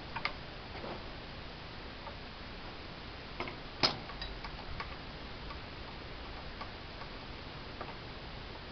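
A few sparse, irregular light clicks and taps as hands work a fitting on top of a small Delf marine engine, with one sharper click about four seconds in, over a quiet steady hiss. No engine firing is heard.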